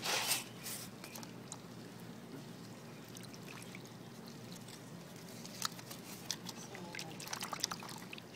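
Water splashing and dripping in a plastic basin as a gloved hand stirs it and lifts soaked foil packets and paper out of it. A louder splash right at the start, then scattered small splashes and drips, thicker near the end.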